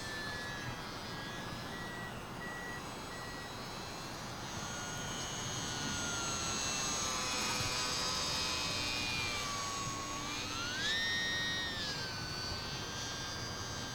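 Brushless electric motor and propeller of an E-flite UMX P-47 RC plane whining in flight, growing somewhat louder in the middle. About ten seconds in its pitch rises sharply, holds for about a second, then eases back down.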